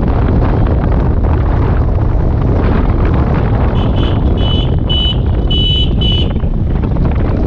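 Wind rushing over the microphone of a moving motorcycle, with the bike's running and road noise underneath. About four seconds in comes a run of five short high-pitched beeps over roughly two seconds.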